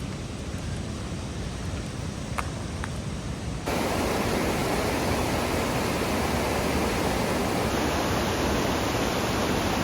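Steady rush of a mountain creek's falls and rapids running high with snowmelt. About three and a half seconds in, it abruptly becomes louder and fuller.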